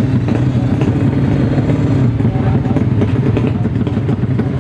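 Four-stroke drag-race motorcycle engine idling loudly and steadily through an open race exhaust, with a rough, uneven beat.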